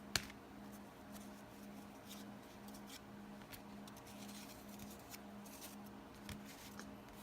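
Trading cards being handled: faint rustles, slides and light ticks of cards and their sleeves, with one sharp click just after the start. Under it, a faint low hum pulses about twice a second.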